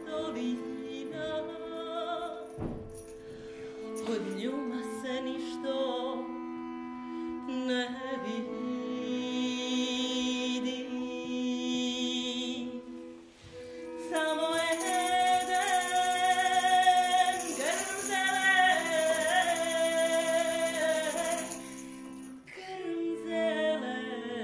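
A Serbian folk song sung over instrumental accompaniment, with steady held notes under a wavering voice. About halfway through, the singing grows louder and higher in a long phrase, then falls back near the end.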